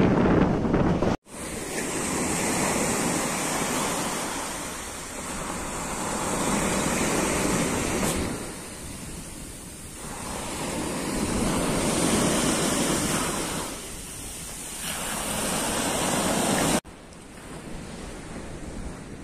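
Small sea waves washing up a sand beach and drawing back, close to the microphone, the rush swelling and fading about every four seconds. Before and after this the surf is heard from farther off, with wind buffeting the microphone in the first second and a sudden drop in level near the end.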